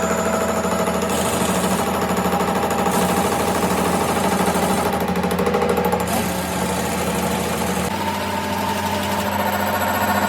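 A workshop machine running steadily with a fast, even rhythmic chatter, its tone shifting a little near the end.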